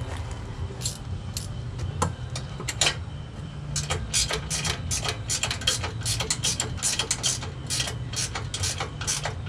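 Hand ratchet wrench clicking as the shock's top mounting bolts are tightened: a few scattered clicks at first, then quick runs of clicks from about four seconds in. A low steady hum runs underneath.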